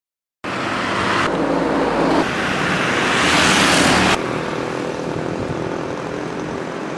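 Road traffic noise. A vehicle goes by loudly and the sound cuts off abruptly about four seconds in, followed by steadier, quieter traffic noise.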